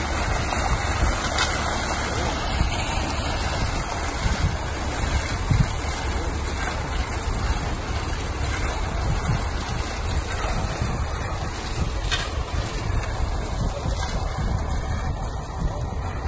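Concrete mixer truck running with its drum turning, discharging wet concrete down its chute: a steady, unbroken mechanical noise mixed with the rush of concrete sliding out.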